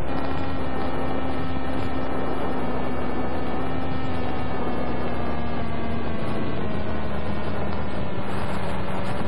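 Electric motor and propeller of a Penguin FPV model plane in flight, heard from its onboard camera: a steady hum over a rush of air, its pitch sinking slowly.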